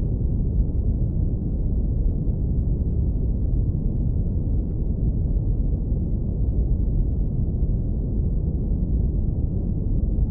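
Deep brown noise filtered to the low end, a steady, even rumble with no highs.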